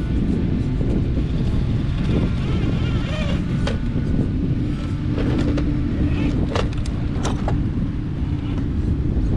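Traxxas TRX4 RC crawler's electric motor whining as it climbs boulders, with several sharp knocks of the truck striking and scraping the rock as it tips over. A steady low rush of wind on the microphone runs underneath.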